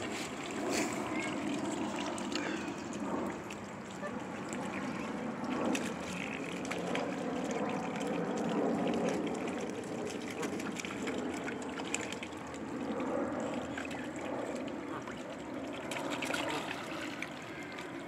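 Shallow water splashing and lapping at a pond's edge as Canada geese, mute swans and ducks paddle and feed in the shallows, with scattered light clicks.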